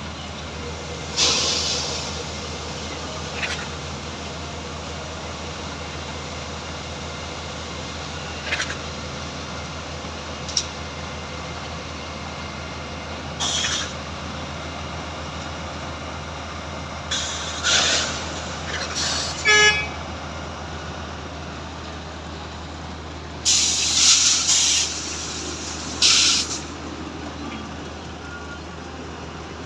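A diesel engine runs steadily under heavy construction machinery at a concrete batching plant. Several short bursts of compressed-air hiss break in, the loudest cluster near the end, with a quick run of clicks around the middle.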